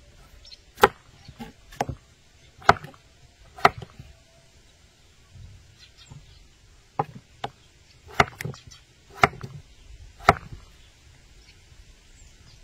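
Knife chopping on a cutting board: about a dozen single, sharp strokes at an uneven pace, some close together, with a short pause in the middle.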